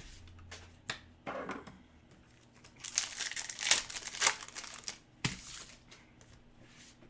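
Hockey card pack wrappers crinkling and tearing open, loudest in a stretch of crinkling in the middle, with a couple of sharp clicks.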